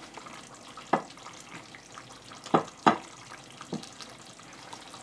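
Wooden spoon knocking four times against the dishes, over a faint steady hiss.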